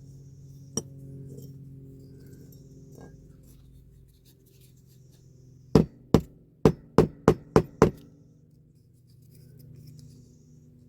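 Small hammer tapping a bent part of a diecast model car to straighten it: one tap about a second in, then a quick run of seven sharp taps around the middle.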